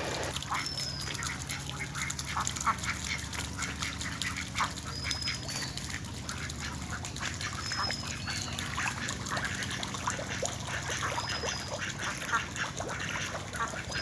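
A flock of domestic ducks quacking and chattering, many short calls overlapping throughout, with a few brief high whistles now and then.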